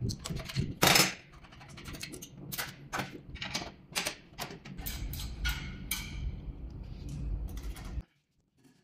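Adjustable wrench clinking against bolts and a steel bracket while screws are loosened: a run of irregular metallic clicks and knocks, loudest about a second in. In the second half a low rumble runs under the clicks as a stainless-steel conveyor rail is handled, and everything cuts off abruptly shortly before the end.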